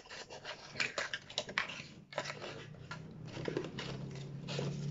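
Cardboard scraping and crinkling in irregular bursts as a painted cardboard tissue-roll tube is pushed and twisted into the round hole of a cardboard box. A low steady hum comes in about halfway through.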